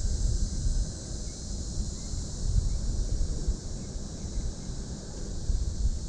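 Wind buffeting an action camera's microphone: an uneven low rumble that rises and falls, over a steady high hiss.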